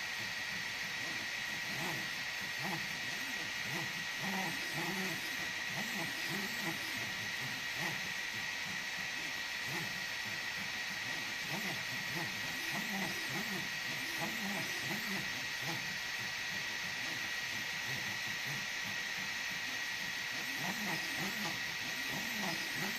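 EasyThreed K10 mini 3D printer printing: short, irregular whirring moves of its stepper motors that keep changing pitch, over a steady hiss and a steady high whine.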